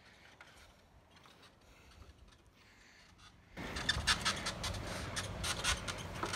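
A man climbing an extension ladder propped against a tree trunk. The first half is near silence. About halfway in, a run of short scuffs, knocks and scrapes from his shoes on the rungs starts, over rustling noise and a steady low hum.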